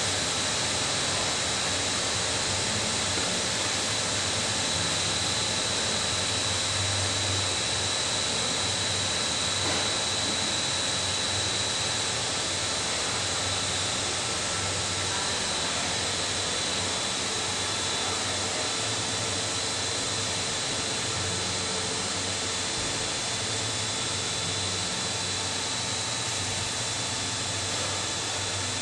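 Steady hissing and humming of a running PVC hose extrusion line, from the extruder drive motors and the water sprays of the cooling trough, with a faint high whine over it.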